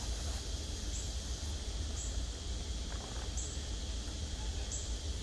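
Outdoor background of insects calling: a short high-pitched chirp about once a second over a steady high hum, with a low rumble underneath and a few faint clicks.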